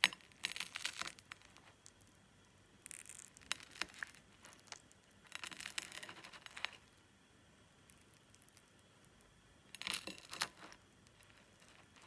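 Table knife sawing through crusty toasted bread of an avocado toast topped with a fried egg: crisp, crackly scraping crunches in four short bouts, with quiet pauses between.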